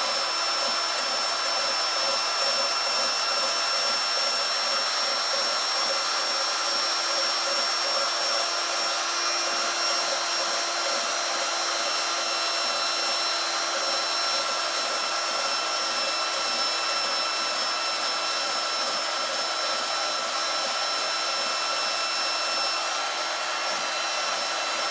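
A steady electric motor hum with several constant whining tones, and faint quick repeated strokes under it, while a cast-iron lathe cross slide is being scraped.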